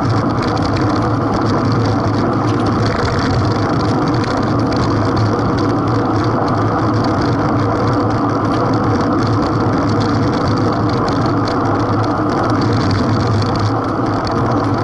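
Steady rush of wind and tyre rumble on the microphone of an action camera mounted low on a road bike riding in the race pack.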